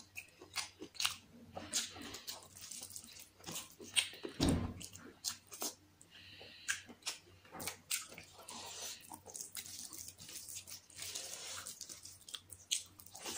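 Close-miked eating sounds of chicken biryani eaten by hand: wet chewing, lip smacks and many small clicks as a boiled egg and a piece of chicken are bitten into. There is one louder dull thump about four and a half seconds in.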